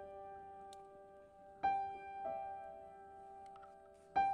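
Background piano music: a few soft notes struck a second or two apart, each left to ring on.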